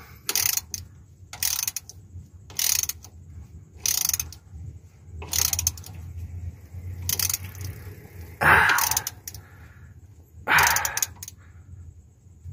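Quarter-inch drive socket ratchet clicking in short strokes as it tightens the drain plug of a Suzuki DA64 manual transmission, a burst of pawl clicks roughly every second and a half, the two loudest strokes near the end.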